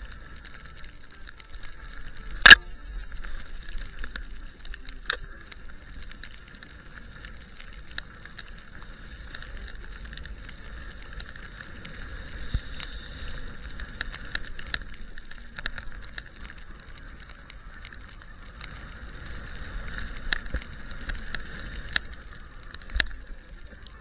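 Skis hissing through deep powder snow, with wind rumbling on a body-worn camera. Sharp clicks and knocks are scattered through it; the loudest, a single sharp crack, comes about two and a half seconds in.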